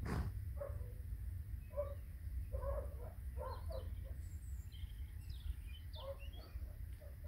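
Birds chirping, with a run of short animal calls repeating every half second or so, over a steady low rumble. A single sharp knock right at the start.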